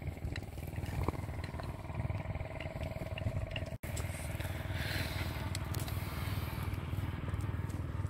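A motor running steadily at a distance: a low drone, with a higher steady tone over it that stops abruptly about four seconds in, and a few faint clicks.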